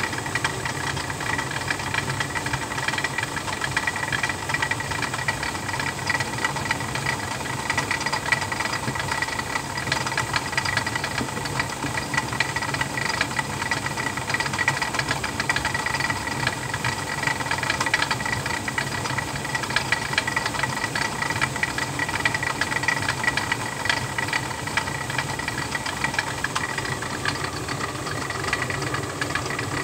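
Stone flour mill (chakki) grinding grain, the millstone turning with a steady hum and a fast, continuous clatter.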